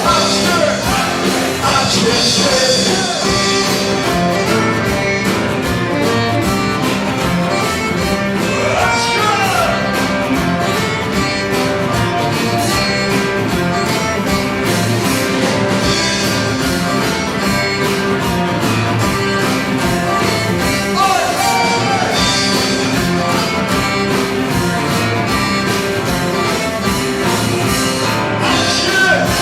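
Live rock band playing an instrumental passage of a song between verses, with a steady beat.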